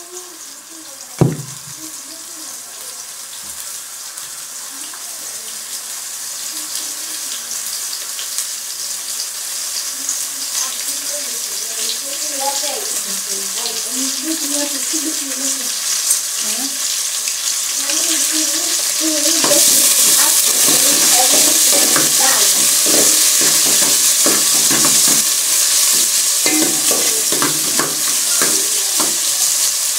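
Chopped green onions and coriander frying in oil in a large aluminium pot, the sizzle building steadily as the oil heats and growing louder about two-thirds of the way through. A sharp knock about a second in, and a metal spoon stirring the pot near the end.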